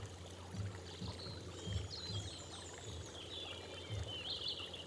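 Steady running water from a tiered garden fountain, with small birds chirping in quick runs, most clearly near the end, and a few soft low thumps.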